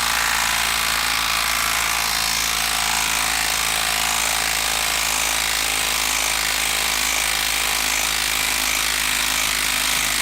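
A 12-volt brushed cordless impact driver hammering continuously at a steady pace as it backs a lag screw out of wood.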